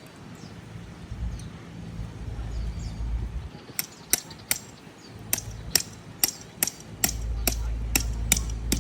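Hammering: about a dozen sharp, evenly spaced strikes, two or three a second, beginning a little before halfway, over a low rumble that comes and goes.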